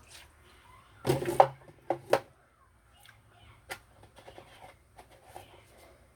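Kitchenware being handled: a loud clatter of knocks about a second in, two sharp knocks just after two seconds, then scattered light taps and clicks.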